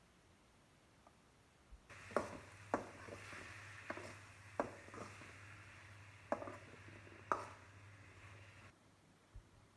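A spatula stirring and turning sliced vegetables in a kadai, knocking sharply against the pan six times over a steady low hum. The stirring starts about two seconds in and stops about a second before the end.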